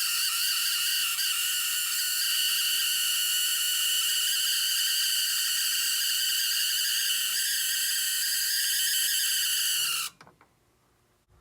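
Small DC motor and worm gearbox of a K-Line die-cast backhoe accessory running with a steady, high-pitched screech made of several tones, cutting off about ten seconds in. The owner suspects it needs lubrication.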